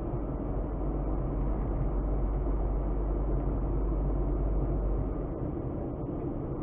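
A car driving, with steady engine and tyre noise; the deep rumble drops away about five seconds in.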